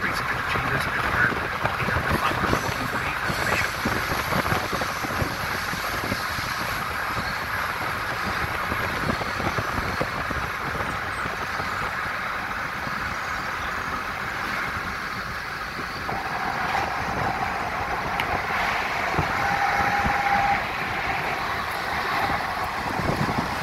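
Steady road and wind noise inside a moving car. About two-thirds of the way in, a thin steady tone joins for a few seconds.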